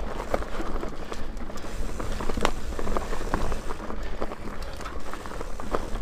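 Mountain bike riding fast down a dirt trail: tyres rolling over the ground, with many sharp clicks and rattles from the bike and a steady low wind rumble on the microphone.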